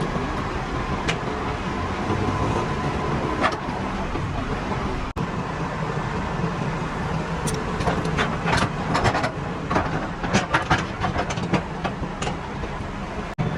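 Steady engine and road-traffic rumble. In the second half, a quick run of sharp clicks and knocks joins it.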